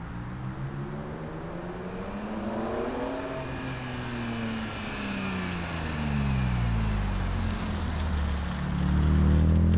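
BMW E46 M3's S54 straight-six exhaust as the car drives up and past. The engine note climbs for about three seconds, then falls as the car slows, and it grows loudest near the end as the car passes close.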